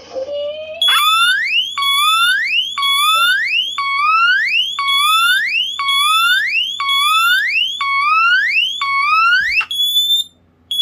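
A circa-1977 Teledyne WaterPik Sonic Siren D-2 smoke alarm's electronic siren sounding on test. It starts with a slow, low rising tone, then sweeps sharply up in pitch about once a second, about ten times, and stops near the end. A second alarm's higher-pitched squealer sounds along with it and is left beeping alone at the end.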